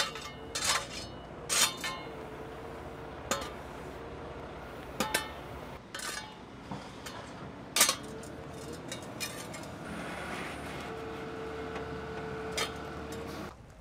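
A metal shovel striking and scraping broken asphalt chunks, in irregular sharp clinks, over the steady hum of a front loader's engine running.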